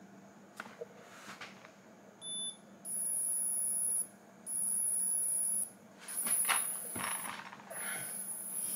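High-pitched electronic beeps from a smart watch strap after its measure button is pressed: one short chirp, then a series of long steady tones of about a second each. Some hand and paper rustling comes in between the later tones.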